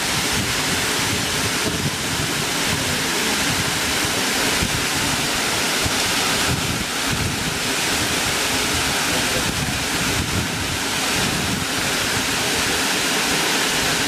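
Small waterfall pouring down a rock face into a shallow stream: a steady rush of falling water, with wind buffeting the microphone underneath.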